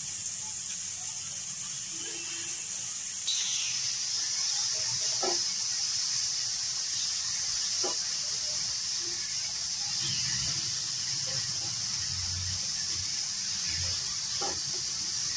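Chopped spinach sizzling in oil in a hot non-stick kadai while a spatula stirs it: a steady hiss that gets louder about three seconds in, with a few light knocks of the spatula against the pan.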